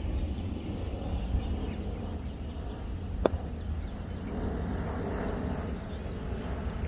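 Steady low outdoor rumble, with one sharp crack about three seconds in.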